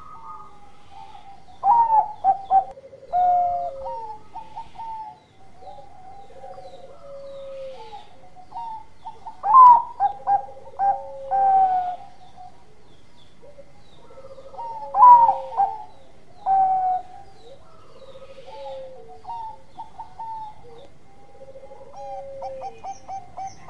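Bangkok-strain zebra dove (perkutut) cooing its song. It gives four loud phrases of short, quick coos several seconds apart, with softer coos in between.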